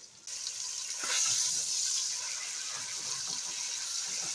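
Pork loin frying in butter in an enamelled cast-iron Dutch oven: a steady sizzling hiss that cuts in just after the start and grows louder about a second in, with faint knocks as tongs turn the meat.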